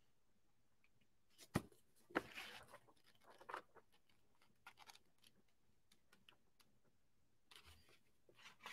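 Faint rustling and crinkling of printed paper pages being handled and leafed through, in a few short spells, with one sharp tap about one and a half seconds in.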